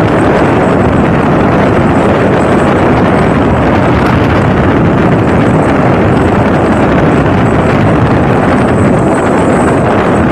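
Motorboat running steadily at speed, its engine and the rush of the ride mixed with wind buffeting the microphone.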